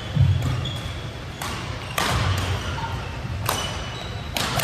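Badminton doubles rally: several sharp racket strikes on the shuttlecock at uneven intervals, with short high shoe squeaks and footfalls on the court floor.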